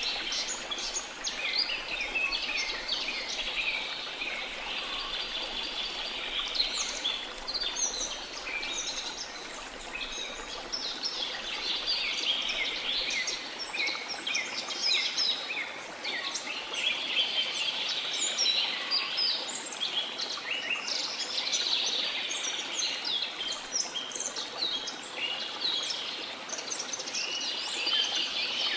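Rainforest ambience: many birds chirping and trilling at once, thick and continuous, over a steady rush of falling water.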